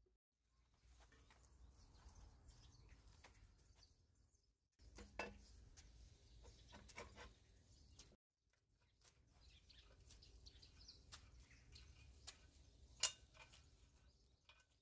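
Faint clicks and light metal clinks from handling a bench drill press as its cast table is fitted onto the column, with one sharper click near the end. A low rumble runs underneath, and the sound cuts out suddenly a few times.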